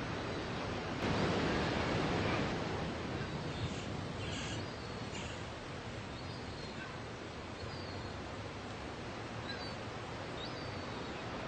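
Surf breaking and washing up a sandy beach, a steady hiss with a wave surging in louder about a second in. A few faint short high chirps come near the end.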